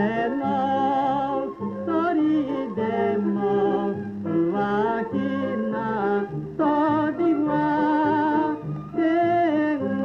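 A 1930 Japanese popular-song (ryūkō kouta) record: a singer holding notes with wide vibrato over a small orchestra's accompaniment, in phrases that break every second or two.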